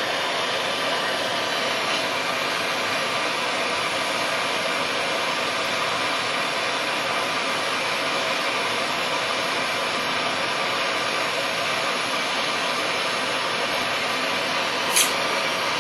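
Gas torch flame hissing steadily while it heats a carbon-steel hacksaw blade red hot for bending. There is one short click near the end.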